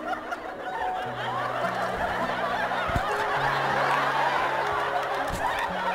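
Theatre audience laughing, the crowd's laughter swelling about a second in, over held low musical notes that change pitch every second or so.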